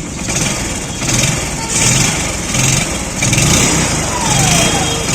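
Bajaj CT 100's single-cylinder four-stroke engine running and revved in short swells about once a second. The clutch-hub rattle is gone now that the correct hub is fitted.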